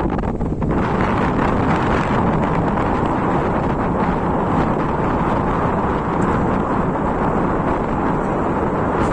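Steady, loud wind noise on the microphone with the rumble of a vessel underway beneath it. It picks up about a second in and then holds steady.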